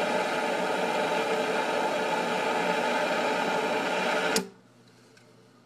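Handheld butane torch flame hissing steadily as it heats the nail of a dab rig, then cut off abruptly with a click about four seconds in.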